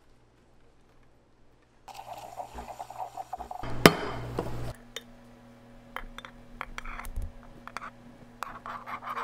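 Kitchen clinks and knocks as a stainless steel milk pitcher and ceramic mug are handled, including one sharp clink. Near the end, frothed milk is poured into the mug.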